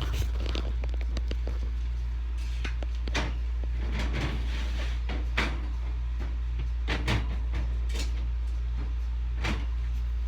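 A steady low hum, with scattered short knocks and clicks spread irregularly over it.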